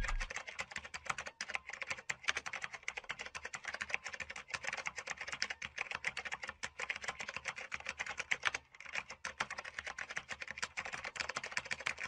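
Computer keyboard typing: a fast, continuous patter of key clicks, with one short pause about eight and a half seconds in.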